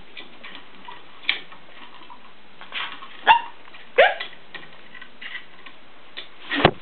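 Blue-and-yellow macaw giving short calls that drop sharply in pitch, two of them about three and four seconds in, with a louder call starting right at the end.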